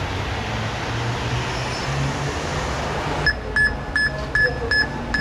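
Wind on the microphone with a low rumble, cut off abruptly about three seconds in by an electronic ghost-hunting detector giving short high-pitched beeps, about three a second.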